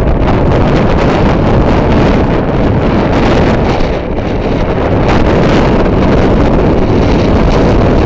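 Storm wind buffeting the microphone: loud, steady wind noise with a deep rumble.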